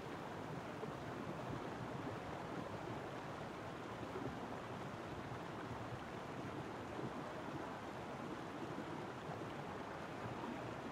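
Steady rush of flowing water, a river ambience.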